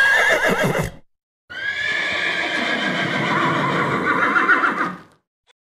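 Horse whinnying twice: a short call that ends about a second in, then a longer, wavering whinny lasting over three seconds.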